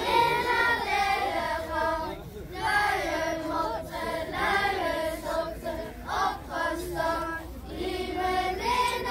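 A group of children singing a song together, unaccompanied, in sung phrases with short breaks for breath between them.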